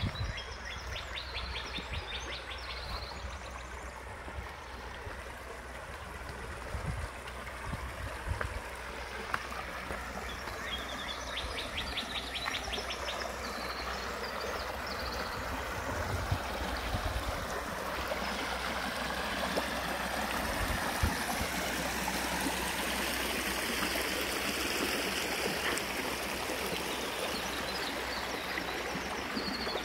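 Shallow creek water running and trickling over stones as a steady rush, which grows louder a little past the middle.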